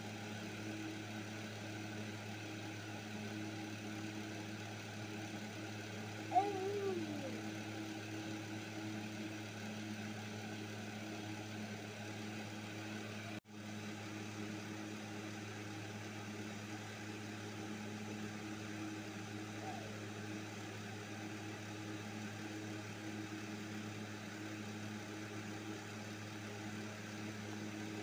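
Steady low mechanical hum, like a motor running. A short sound sliding down in pitch comes about six seconds in, and the sound cuts out for an instant about halfway through.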